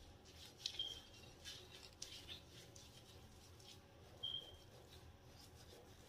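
Near silence, with faint rustling and soft scratching of fingers working through hair, and two brief high squeaks, one about a second in and one about four seconds in.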